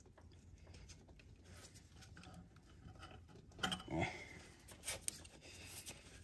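Faint handling noises as a small rubber hose is worked onto its port on the throttle body: light rubbing and scattered clicks, with a few louder knocks about three and a half seconds in and again about five seconds in.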